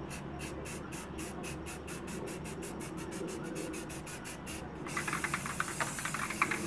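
Aerosol spray paint can being shaken, an even rattle about six times a second. About five seconds in, a steady spray hiss starts, with more quick rattling under it.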